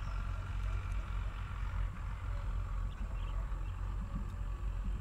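Outdoor background: a steady low rumble, with a faint high chirring and a few short chirps over it.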